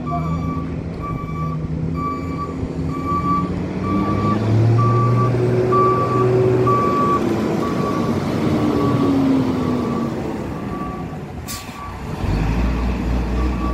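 Refuse compactor truck's reversing alarm beeping about twice a second over its running diesel engine, whose note rises and falls for several seconds midway. Near the end a short hiss of air and the heavier low rumble of a passing truck's engine.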